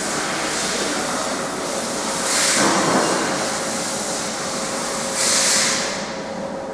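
Steady rushing machine noise from a workshop, with two louder surges of hiss about two and a half and five seconds in.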